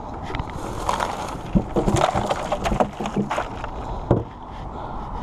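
Foam fish cooler being handled while a caught porgy is put inside: scraping and rustling with scattered knocks, then a sharper knock about four seconds in.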